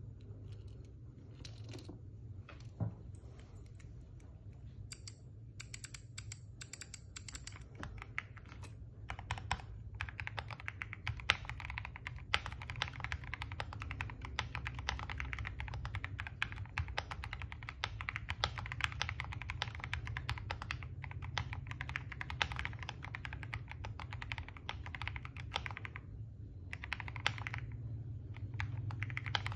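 Typing on a keyboard: scattered keystrokes at first, then fast, steady typing from about a third of the way in, pausing briefly near the end, over a low steady hum.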